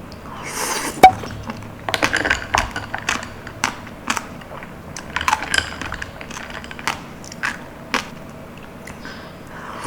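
Close-miked eating sounds: clusters of crisp, wet clicks from chewing and mouth movement, with a single sharp tap about a second in.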